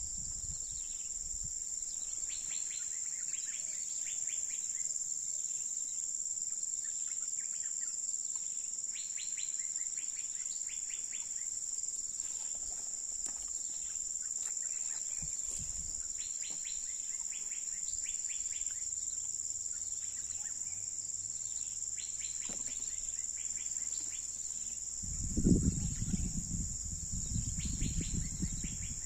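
Steady high-pitched drone of forest insects, with repeated short rapid trills every few seconds. Near the end a burst of low rumbling thumps close to the microphone.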